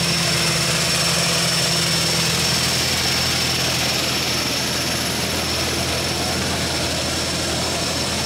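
Jump plane's aircraft engines running, a steady drone with a thin high whine held throughout.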